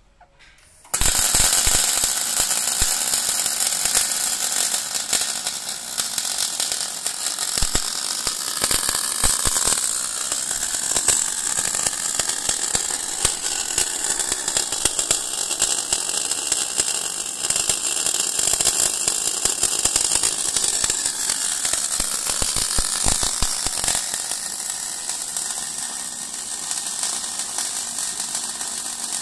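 Kemppi MIG welding arc crackling steadily as an automated torch lays a circumferential weld around a rotating tube. The arc strikes suddenly about a second in.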